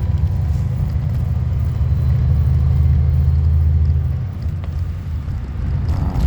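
Low, steady vehicle rumble that eases a little about four seconds in.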